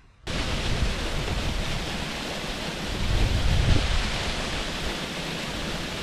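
Takataru waterfall's steady rushing noise of falling water, starting abruptly a quarter second in, with a low rumble that swells slightly around three to four seconds in.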